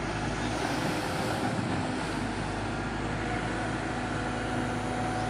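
Diesel engine of a JCB 3DX backhoe loader running steadily, with a constant hum.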